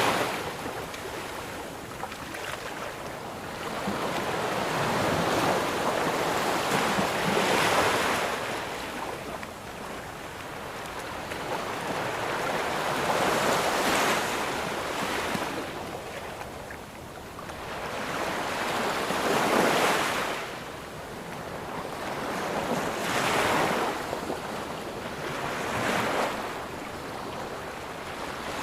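Waves breaking on a sandy beach, each surge of surf swelling and washing back every few seconds.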